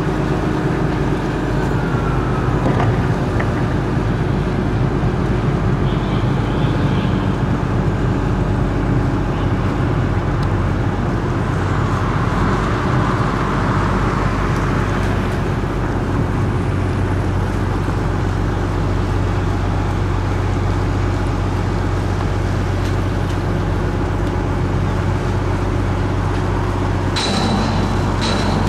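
Steady engine drone with several fixed low hum tones, holding an even level, with a brief sharp rattle and a short high tone near the end.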